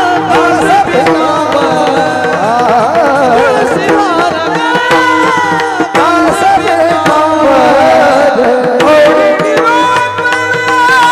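Marathi Warkari kirtan music: a voice singing a devotional melody with hand-drum accompaniment over a steady held drone.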